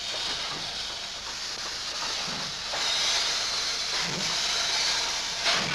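Steam locomotive hissing steam as it rolls slowly past, a steady noisy hiss that grows louder about three seconds in.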